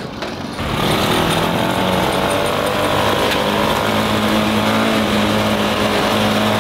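Small engine of a kids' ride-on mini tractor running steadily as it drives along, coming in strongly about a second in.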